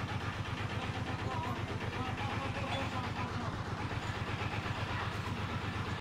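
Small bamboo tabletop fountain running: water trickling and splashing steadily from the bamboo spouts into the tray below, with a low hum underneath. It cuts off abruptly at the end.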